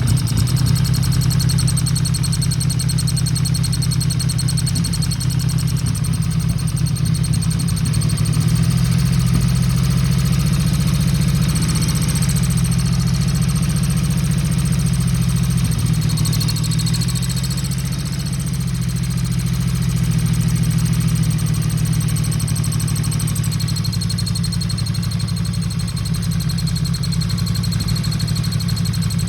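1977 Yamaha XS750 three-cylinder engine running steadily at idle, with revs swelling slightly a couple of times. It is making a distinct noise that the owner can't place, either from the cams and valves up top or from a vacuum leak.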